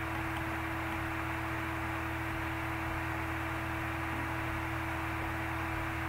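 Steady background hiss with a low hum and a faint steady single-pitched tone: the room tone of the recording, with no other sound.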